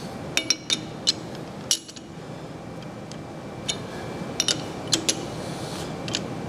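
Light, irregular metallic clinks and taps of a steel scale and chuck key against the jaws of a four-jaw lathe chuck as the jaws are set and measured, about a dozen sharp clicks.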